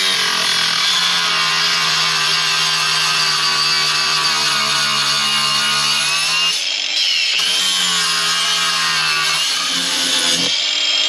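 Electric power tool running hard, in two long steady runs with its pitch sagging under load; it stops briefly about six and a half seconds in, then starts again.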